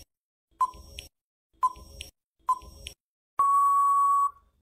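Quiz countdown-timer sound effect: short beeping ticks about once a second, then one long steady beep of about a second near the end, signalling that time is up.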